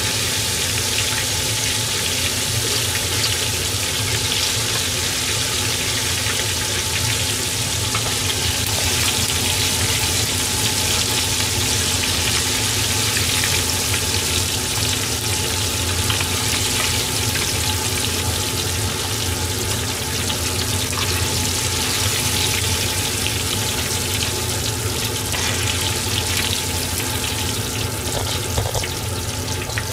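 Small fish deep-frying in a shallow pan of oil, a steady sizzle throughout as the pieces are lifted out with a wire-mesh skimmer. The sizzle has settled to the quieter sound that signals the fish is cooked through.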